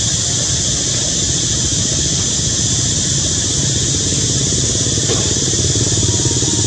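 An engine running steadily, with a constant high hiss over it.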